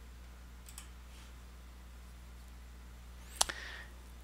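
Computer clicks over a low steady hum: a faint click or two just under a second in, and a sharper click at about three and a half seconds.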